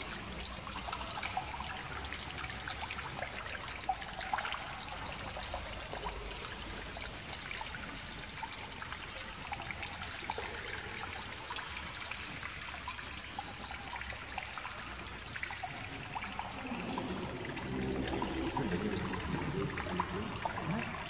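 Water trickling steadily. Voices come in about seventeen seconds in.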